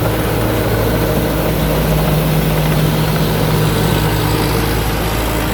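Rice combine harvester's Hino J08C diesel engine running steadily under load, a smooth, even drone with no knocks or changes in pitch.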